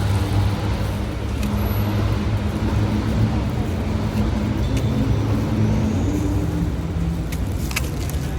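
Steady low engine rumble of road traffic, with a few sharp clicks near the end.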